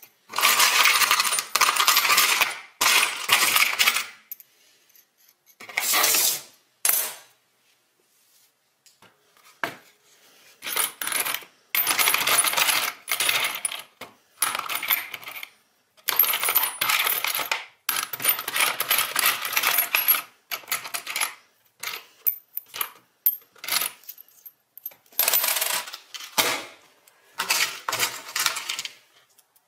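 Metal bolts and washers clinking and rattling as a hand rummages through a small plastic parts bin, in runs of a few seconds broken by short pauses.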